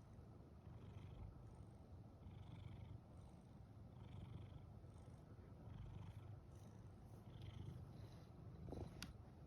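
Brown tabby cat purring, a faint steady low rumble that swells and eases with each breath, about once every second and a half. A brief sharp click about nine seconds in.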